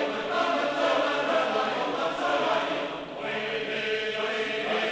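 Background choral music: a choir singing long, held chords.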